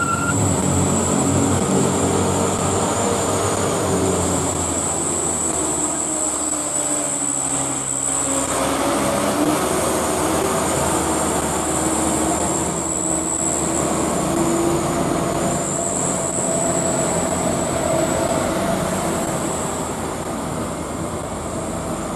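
Light diesel trucks' engines labouring up a steep hairpin climb. Their pitch sinks over the first several seconds, then rises again as they pull on up the grade.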